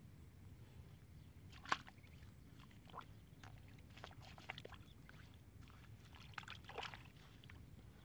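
A few short splashes and sloshes of muddy water as a hand works in a small water-filled hole dug in the ground. The sharpest splash comes about two seconds in, and a small cluster follows near the end, over a faint steady background.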